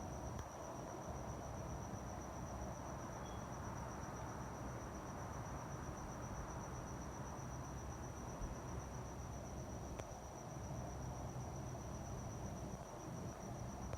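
A cricket trilling in one steady, high, finely pulsing note over a low, even rumble of night background noise, with a single faint click about ten seconds in.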